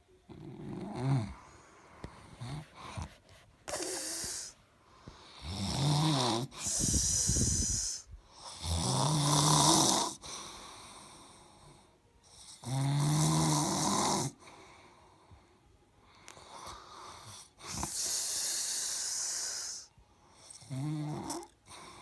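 A sleeping person snoring in slow, regular breaths: each breath a rough, pitched snore followed by a breathy hiss, recurring every few seconds.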